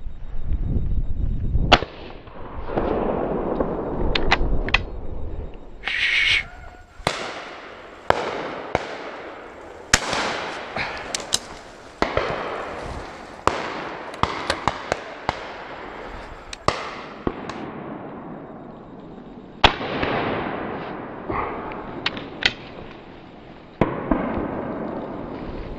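Twelve-bore shotguns firing at driven pheasants: an irregular string of shots, some loud and close, many fainter and farther off, each trailing away in echo.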